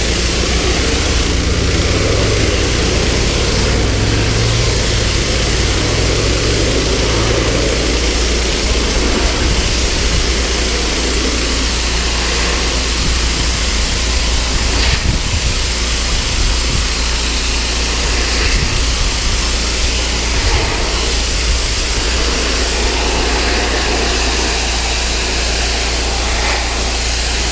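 Gas pressure washer engine running steadily while its wand sprays water across weathered wooden deck boards, washing off mold and mildew.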